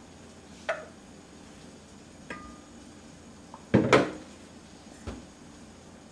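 A few separate wooden and metal knocks and clatters as kitchen things are handled on a stainless-steel counter. The loudest is a close double knock about four seconds in, as the two-piece wooden lid of a hagama rice pot is set down. Earlier there is one short knock with a brief metallic ring.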